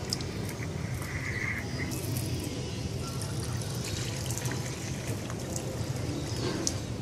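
Water from a garden hose pouring and trickling steadily into a plastic bucket, with music underneath.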